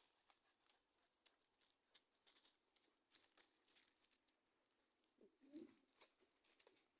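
Near silence, with faint scattered scratching ticks and one brief low call about five and a half seconds in.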